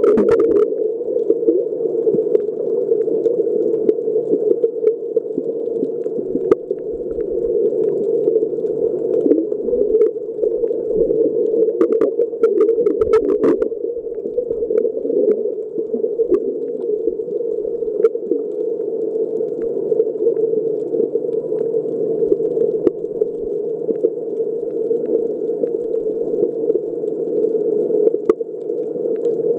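Underwater ambience heard through a waterproof compact camera's sealed housing on a shallow rocky sea floor: a steady, muffled wash of moving water. Scattered faint clicks and crackles run through it, with a small cluster a little under halfway through.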